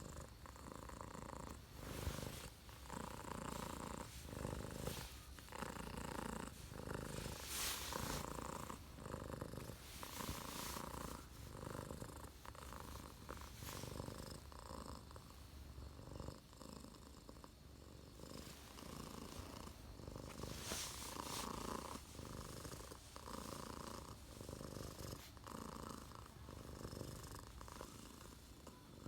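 Domestic cat purring close up, the purr pulsing in an uneven rhythm of about one or two swells a second, with a few brief louder noises along the way.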